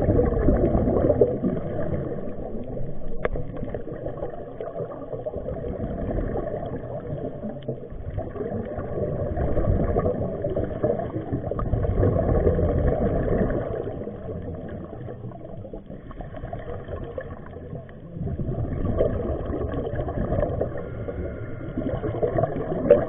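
Underwater ambience on a scuba dive: muffled low rumble and bubbling that swells and fades every few seconds.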